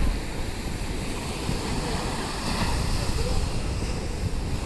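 Ocean surf washing up the beach as a steady rush, with wind rumbling on the microphone.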